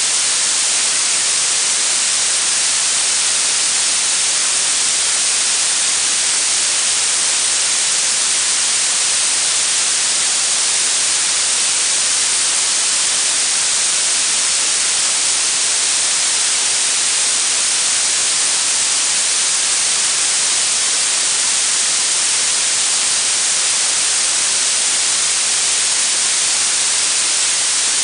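Synthetic blue noise: a steady, unchanging hiss with its energy tilted toward the high frequencies.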